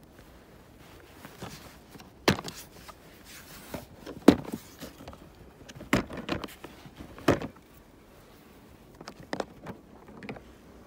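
Sharp plastic clicks and knocks, four loud ones about two seconds apart and a few softer ones near the end: a plastic pet carrier being handled, its side latches unclipped to take off the top half.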